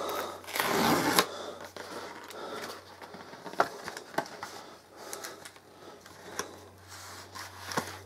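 Cardboard tablet box and packaging being handled: a brief loud sliding rustle about a second in, then scattered light taps and clicks as the tablet is slid out of its cardboard sleeve.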